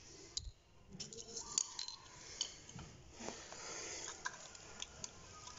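Faint, scattered light clicks and clinks of a plastic wall switch plate and its mounting hardware being handled by hand.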